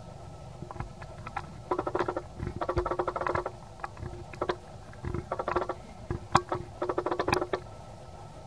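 Macaque chattering: four short bursts of rapid clicking pulses, with single clicks between them.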